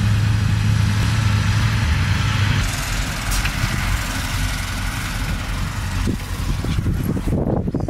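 Heavy dump truck's diesel engine running as the truck drives slowly past: a steady low drone that eases into a rougher rumble after about two seconds.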